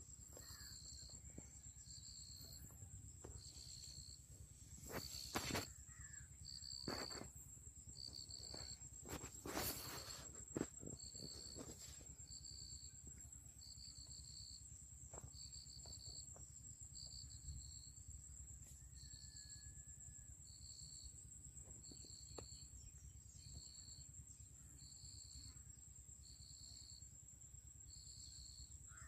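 Insects chirping in a steady rhythm, a short high chirp a little over once a second over a continuous thin high-pitched buzz. A few sharp knocks and rustles stand out around five and ten seconds in.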